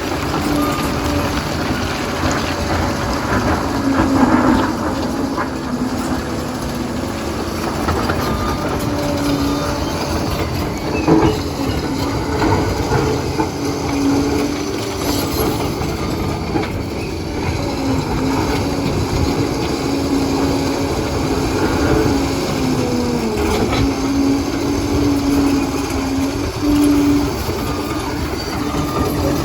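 Liebherr PR 746 crawler dozer at work: the diesel engine runs steadily under load with a whine that wavers in pitch, over a constant clatter of the steel tracks.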